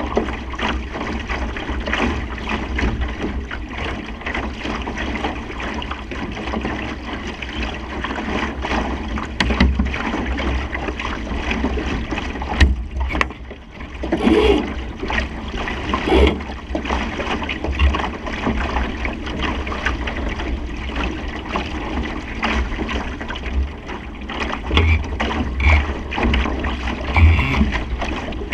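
Supernova sailing dinghy under way in a fresh breeze: water rushing and splashing along the hull, wind buffeting the microphone, and irregular short splashes and knocks.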